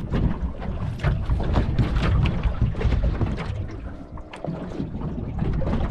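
Wind buffeting the microphone on a small open boat at sea, a steady low rumble, with scattered knocks and taps from handling on deck.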